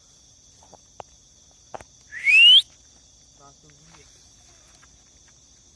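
Night insects trilling steadily, with one short, loud rising whistle about two seconds in.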